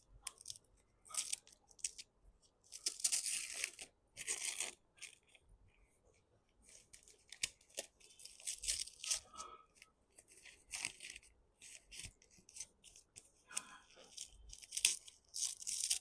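Paper wrapping on a book being torn open by hand, in repeated tearing and rustling bursts, a few longer rips at first and then many short tugs.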